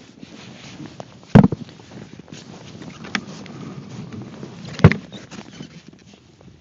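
Two loud, sharp knocks about three and a half seconds apart, with a fainter knock between them, over low wind rumble on the microphone: gear being handled and set down.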